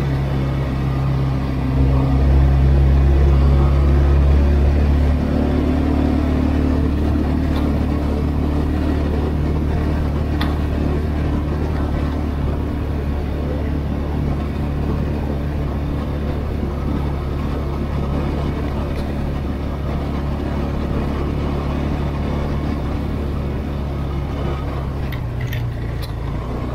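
Engine of an off-road vehicle running steadily at an even pitch while driving over a dirt track. The hum eases slightly after about five seconds, with a few short knocks or rattles along the way.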